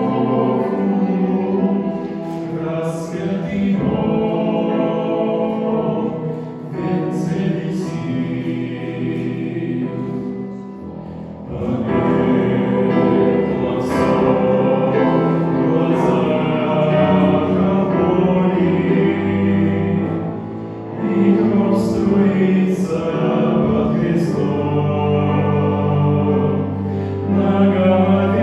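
A choir singing a slow Christian song in Russian, with deep bass notes under the melody.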